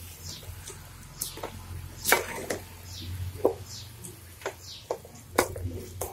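Wooden spoon stirring soaked basmati rice and spinach purée in a metal pot, knocking and scraping against the pot in irregular sharp taps, with a low hum underneath.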